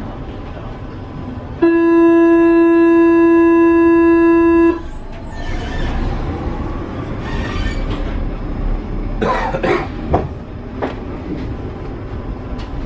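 Paris Metro train's door-closing warning buzzer sounding one steady tone for about three seconds, then cutting off. Clunks and the rumble of the train follow.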